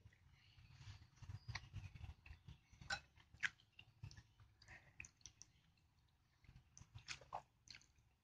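Faint eating sounds: chewing, with a metal spoon clinking now and then against a glass bowl of bakso (meatball soup).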